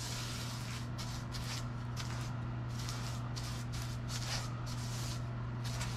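Paintbrush swishing in quick back-and-forth strokes, about two to three a second, as gloss paint is brushed onto crown molding, over a steady low hum.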